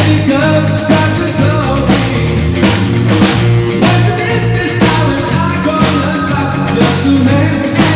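Live rock band with a singer, drums, guitar and heavy bass, played loud through Alto TS408 PA speakers and a Schalter Dao subwoofer.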